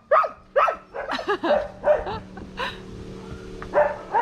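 Dogs barking: a quick run of barks, about two a second, in the first second, then scattered barks and yips.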